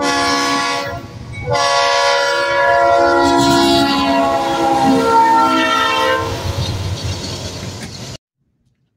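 GE Dash 9-44CW freight locomotive's air horn sounding a short blast and then a long one as it passes, the chord shifting lower in pitch as the locomotive goes by. The rumble of the passing freight cars follows and cuts off suddenly near the end.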